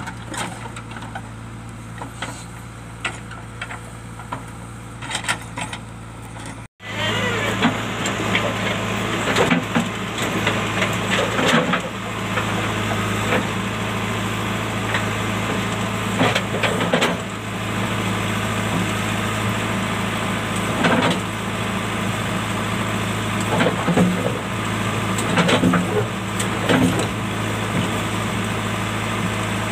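Diesel engine of a JCB backhoe loader running steadily, with repeated short knocks and clatter as it works among rocks. The sound breaks off for an instant about seven seconds in and comes back louder.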